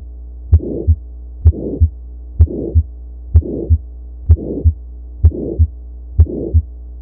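Heart sounds through a stethoscope at about one beat a second, seven beats. In each beat a blowing murmur fills the gap between the first and second heart sounds: the systolic murmur of mitral regurgitation. A steady low hum runs underneath.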